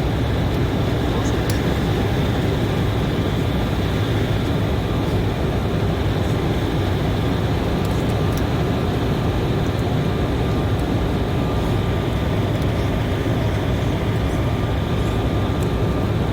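Steady cabin noise of an Embraer E190 airliner in flight: engine and airflow noise with a faint steady whine.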